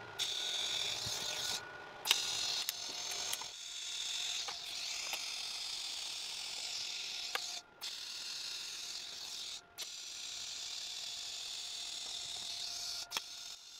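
TIG welding arc on stainless steel: a steady hiss from the torch, broken a few times by sharp clicks and short gaps.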